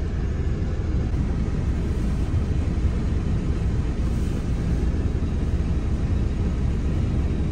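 Steady low rumble of a vehicle engine running, heard from inside the cabin.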